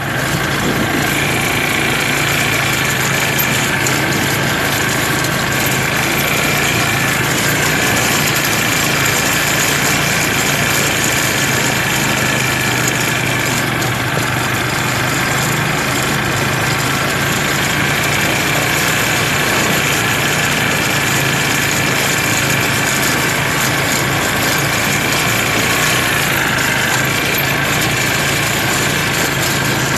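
Several ATV (quad bike) engines running steadily as they are ridden, a loud, unbroken engine drone with a faint higher whine over it.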